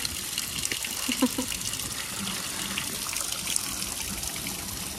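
A jet of water pouring steadily into a metal tub of water, with splashing as a lion stands and paws in it.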